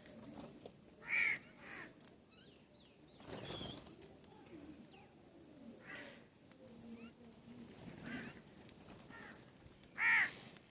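Birds calling at a feeder: two loud short calls about a second in and near the end, softer calls in between, and a brief rush of noise about three and a half seconds in.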